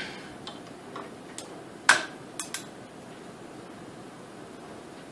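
A few short metallic clicks and clinks from a torque wrench and armorer's wrench being worked on an AR-15 barrel nut, the sharpest about two seconds in.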